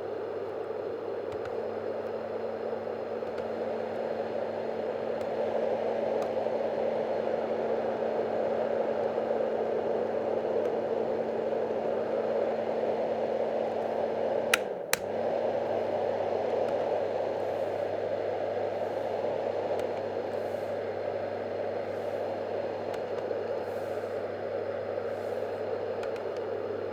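Yogasleep Dohm Classic white noise machine running: its fan makes a steady, even rushing, with a low motor hum underneath. About halfway through there are two sharp clicks, and the motor hum dips briefly in pitch, then steadies again.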